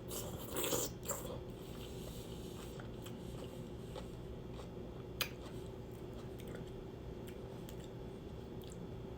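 Close-up eating sounds of seafood boil: chewing, with a short burst of louder wet chewing about half a second in, then a few scattered soft mouth clicks.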